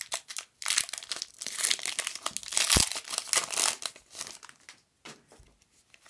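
Foil wrapper of a Pokémon trading card booster pack crinkling as it is torn open and the cards are pulled out. The crackle is busiest in the middle and dies down to faint rustles near the end.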